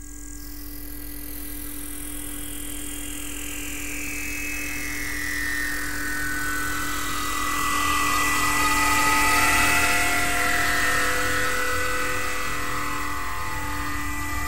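Synthesizer intro of a pop backing track, fading in. A whooshing noise sweep falls slowly in pitch over sustained pad tones and swells to its loudest about two-thirds of the way through.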